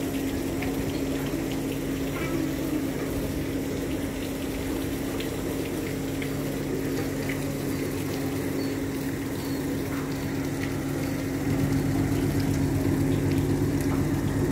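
A river tugboat's diesel engine drones steadily, growing louder about three-quarters of the way through as the boat comes closer.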